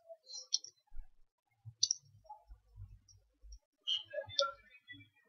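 A few faint, scattered clicks, with long gaps between them and a faint low hum at times.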